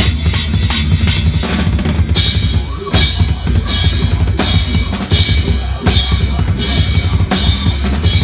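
Drum kit played live with the band, bass drum and snare loud over a heavy low rumble. Quick hits about four a second give way, about two seconds in, to heavy accents with crashing cymbals roughly every three-quarters of a second.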